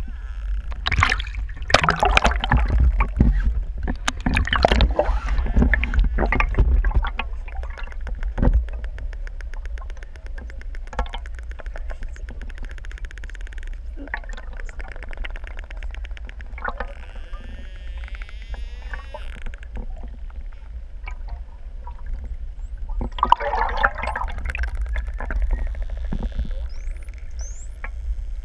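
Underwater sound through a camera housing: a steady low rumble of water moving past the pole-mounted camera, with many sharp clicks, a rapid buzzing pulse train and a few brief rising whistles from a pod of pantropical spotted dolphins. The clicks are loudest and densest in the first several seconds.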